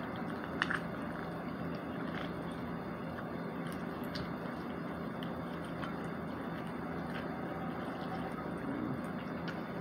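Sauce-covered fried chicken pulled apart by hand, giving faint wet squishes and a few small clicks over a steady background hum.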